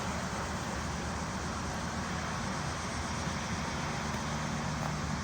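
Steady road traffic noise, a continuous rush with a low hum under it.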